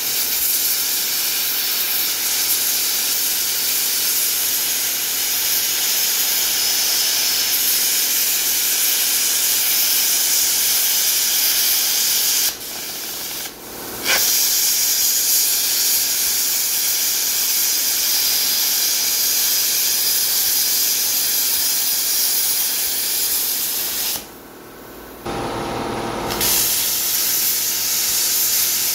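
Eastwood Versa Cut 60 plasma cutter cutting through a rusty steel truck frame, its arc and air jet making a steady loud hiss. The hiss stops briefly about halfway and restarts with a sharp click, then stops again for a couple of seconds near the end before the cut resumes.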